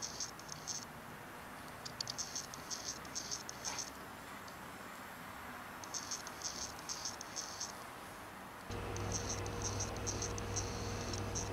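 Short bursts of rapid, high-pitched rattling ticks, each lasting about a second, four times. A steady low hum comes in about nine seconds in.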